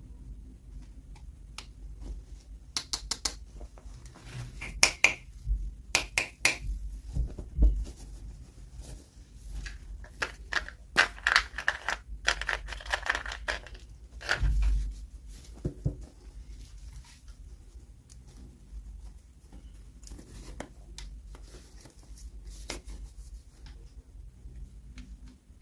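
Hands unpacking small plastic toys: scattered clicks and taps of plastic pieces, with a stretch of packaging crinkling and tearing about ten to fifteen seconds in.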